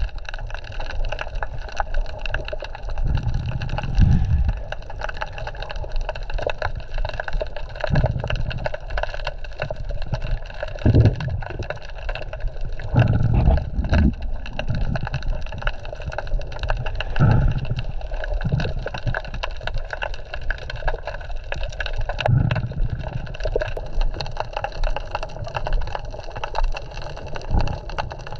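Underwater sound picked up by an action camera in its waterproof housing: a steady muffled water wash with dull low thumps every few seconds.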